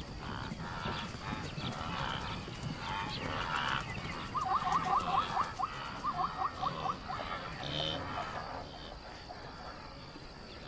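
Animal calls at night: soft scattered calls, then two quick runs of short repeated call notes, about seven a second, between about four and seven seconds in.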